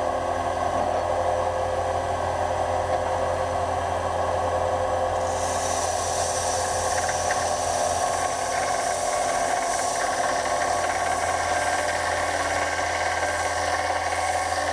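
Sonic belt and disc sander running steadily; about five seconds in, an old rusty steel knife blade is pressed to the sanding belt, adding a high grinding hiss as the blade is ground back to bare metal.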